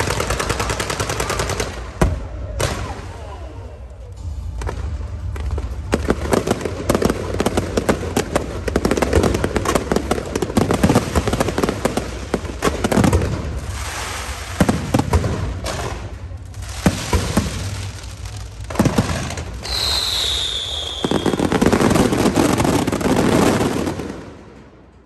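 Firecrackers and fireworks going off in a dense, fast crackling barrage of bangs. About twenty seconds in, a short whistle falls in pitch. The barrage then fades out near the end.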